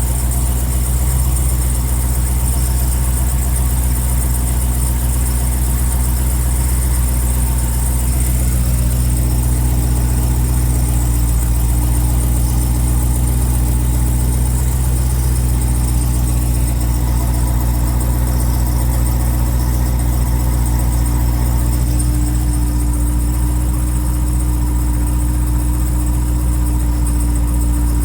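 Jeep Grand Cherokee Trackhawk's supercharged 6.2-litre Hemi V8 idling steadily on a cold start, with a squeaky, tinkling noise over the idle. It is a cold-start noise that the owner says goes away once the engine warms up.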